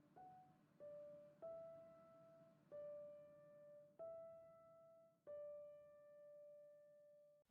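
Faint background piano music: six slow single notes, each left to ring out and fade before the next.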